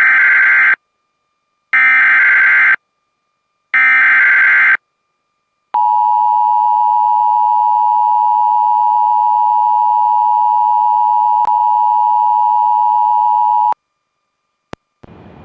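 Emergency Alert System signal: three short bursts of warbling SAME data-header tones about a second apart, then a single steady attention tone held for about eight seconds that cuts off suddenly.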